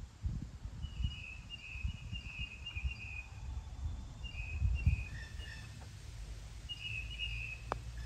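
A songbird chirping in short trilled phrases, three times, over a low rumble; a single sharp click near the end.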